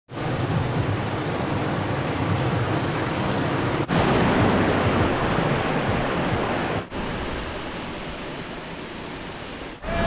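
Steady rush of a waterfall and cascading water over rocks, in three stretches broken by brief dropouts about four and seven seconds in; the middle stretch is the loudest.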